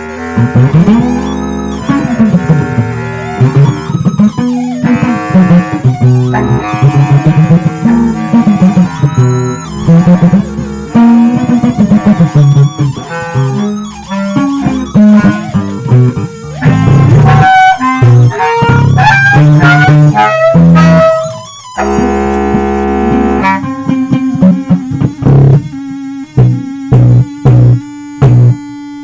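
Instrumental music played on plucked guitar and electric bass, with gliding low notes through the first half and a steadier repeating figure in the last several seconds.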